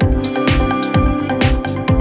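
Electronic background music with a steady beat, a kick drum about two beats a second under high percussion hits and held synth tones.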